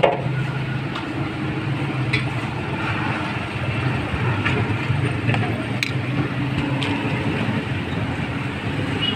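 Steady low hum of street traffic around a roadside food stall, with a few sharp clicks.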